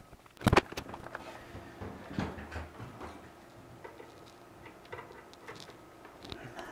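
Handling noise: one sharp knock about half a second in, then scattered light clicks and rustles as a cordless drill and a length of cable are picked up and handled.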